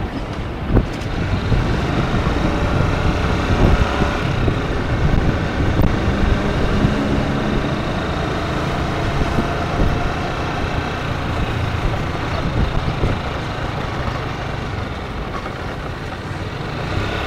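Honda CG 125 Titan motorcycle's single-cylinder four-stroke engine running steadily as the bike rides along a street, heard from on the bike with wind rushing over the microphone.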